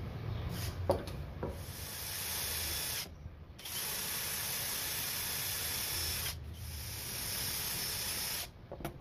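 Cordless drill boring into wood, run in three spells with two short pauses. A couple of light clicks come before the first run.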